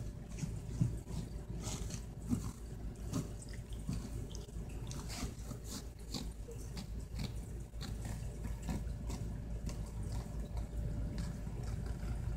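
Kitten scampering and playing: scattered light taps and scuffs at irregular intervals over a steady low hum.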